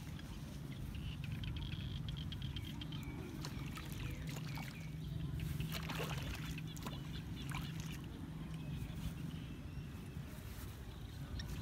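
A hoe chopping and scraping into wet mud and shallow water, with irregular knocks and splashes, the heaviest about halfway through, over a steady low hum.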